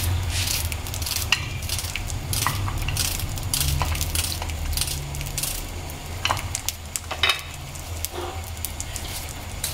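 Small red onions being peeled by hand: dry, papery crackles of onion skin and a few light clicks on a china plate, over a low steady rumble from the lit gas burner heating oil.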